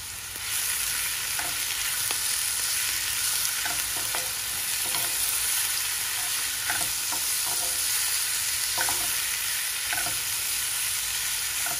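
Raw shrimp frying in hot oil in a non-stick frying pan: a steady sizzle that gets louder about half a second in. Light, scattered knocks and scrapes come from a wooden spoon turning the shrimp.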